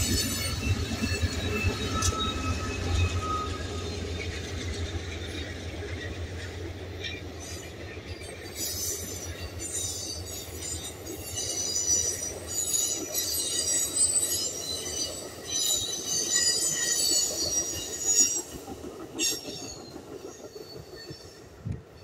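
Amtrak passenger train passing close by: the diesel locomotive's low rumble first, then the cars rolling past on the rails with high-pitched wheel squeal and a few clacks through the middle. The sound fades near the end as the train moves away.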